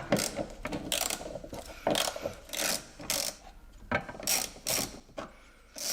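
Socket ratchet clicking in a series of short strokes, with brief pauses between them, as 8 mm hex bolts are undone.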